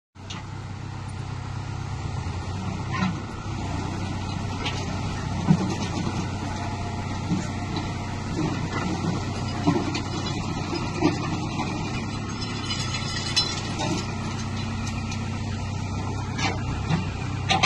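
SANY crawler excavator's diesel engine running steadily while the boom, arm and bucket are worked, with occasional short knocks.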